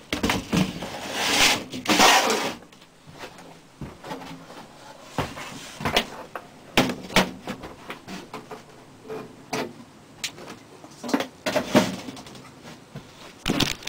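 A reptile vivarium's lid is slid and set back into place, with two scraping slides in the first couple of seconds, then scattered knocks and clicks.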